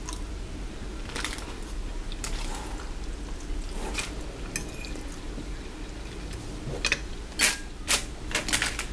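Eating sounds: short clicks and smacks from a metal fork on a glass plate and from chewing, with the loudest cluster of clicks near the end, over a low steady hum.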